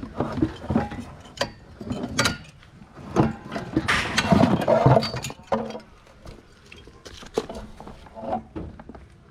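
Objects knocking and clinking as junk is rummaged through and handled, with a louder, longer burst of noise about four seconds in.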